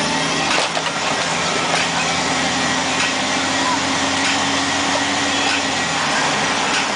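Truck engine running steadily while under way on a gravel road, heard from inside the cab, with a constant hiss of road noise over the engine note.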